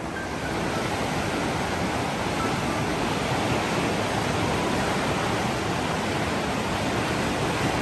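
Steady roar of Takakkaw Falls, a 373-metre waterfall: a dense, even rush of falling water.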